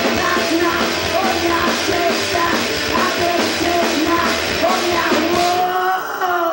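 Live rock band playing loud: electric guitar, drum kit and vocals. The drums stop about five and a half seconds in, leaving a held, wavering note ringing.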